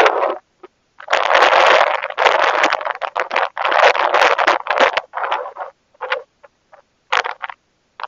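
Wind buffeting the microphone of a phone carried on a moving bicycle, in loud broken gusts that cut in and out. After about five seconds it dies down to short scattered puffs.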